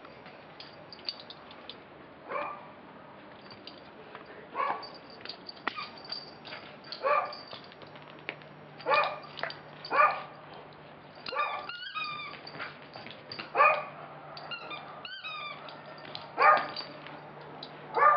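A dog barking in single short barks every couple of seconds, about ten in all, with a couple of higher, wavering yelps near the middle.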